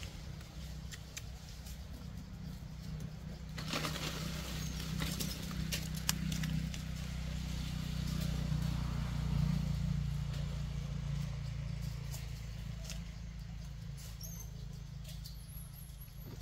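Dry leaf litter crackling and rustling under a long-tailed macaque mother and infant as they shift about, loudest with a few sharp clicks about four to seven seconds in, over a steady low rumble. A few faint high chirps come near the end.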